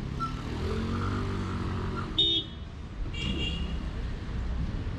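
Street traffic running, with a short car horn toot about two seconds in, the loudest sound here, followed about a second later by a brief high-pitched tone.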